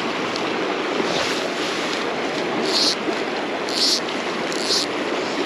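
Fast river rushing steadily over rocks. In the second half, short hissing swishes come about once a second from the fly line being worked.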